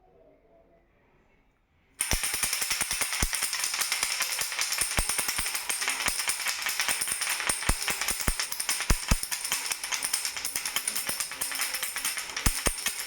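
A baby's rattle being shaken without pause: a dense, steady rattling with sharp clicks, starting suddenly about two seconds in after a near-quiet moment.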